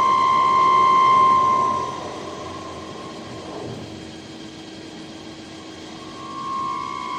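CNC lathe turning a metal bar, the cutting tool giving a high, steady ringing tone that is loud for about the first two seconds, fades, and comes back near the end over the lower steady hum of the running machine.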